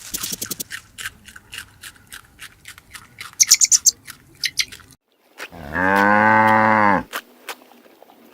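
A cow mooing once, a single call of about a second and a half that begins about five and a half seconds in. Before it come a few seconds of scattered sharp clicks, with a short run of quick, high clicks in the middle.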